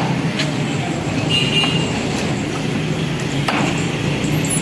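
Cleaver chopping fish on a wooden log block, a few sharp knocks, over a steady din of street noise.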